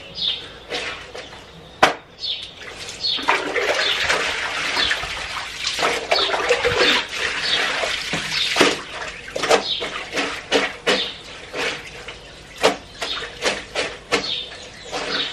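Laundry being scrubbed by hand with soap on a washboard sink: repeated wet rubbing strokes, about two a second, with a longer spell of sloshing water in the middle.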